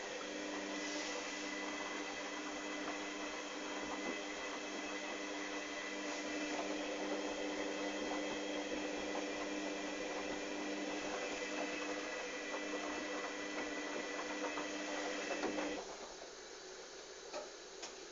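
Hoover Dynamic DYN 8144 D washing machine running mid-cycle: a steady motor hum with several constant tones over drum and water noise. The motor stops suddenly about 16 seconds in, leaving a faint hiss and a couple of small clicks.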